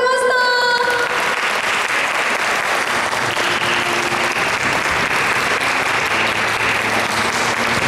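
Audience applauding steadily, starting as a woman's voice on the microphone ends about a second in.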